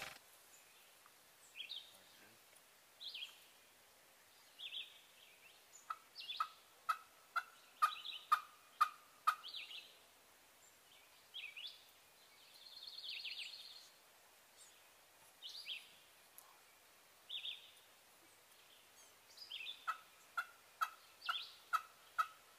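Turkey yelping: two runs of short, evenly spaced notes at about two a second, one in the middle and one near the end, with scattered chirps from other birds between them.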